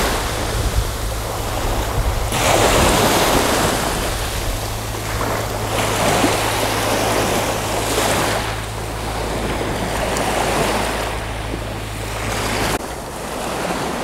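Small Mediterranean waves lapping and washing onto the beach, swelling and fading every few seconds, with wind rumbling on the microphone underneath.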